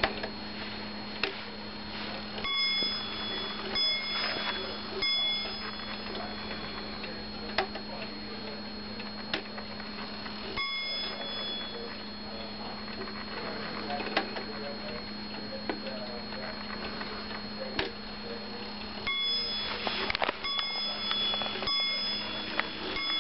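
Large Dutch Schippertje wall clock striking on its bell as its hands are turned round by hand: three strokes a little over a second apart, a single stroke, then about four more strokes near the end, with faint ticking between.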